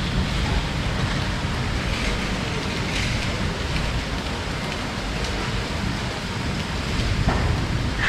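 Heavy rain falling steadily, an even hiss over a low rumble.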